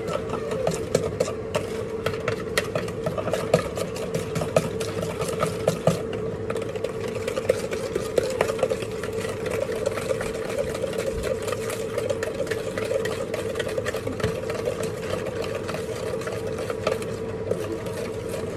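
Stirring in a plastic mixing bowl: rapid, irregular clicks and scrapes of a utensil against the plastic, over a steady hum.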